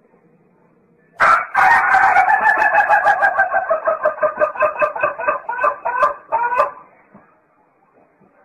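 White rooster crowing: one very long, loud crow of about five and a half seconds, starting about a second in and turning choppy and stuttering toward the end.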